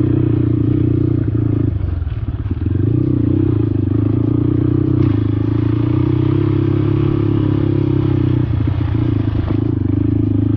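Motorcycle engine running steadily under way, its note dropping and breaking up briefly about two seconds in and again near the end.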